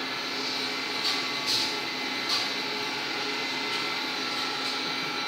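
Steady machine-like whooshing noise with a faint low hum under it, and three short hissing swishes in the first half.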